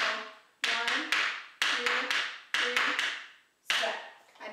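Tap shoes' metal taps striking a wooden dance board: clusters of quick, sharp clicks, one group about every second, each ringing briefly on the board.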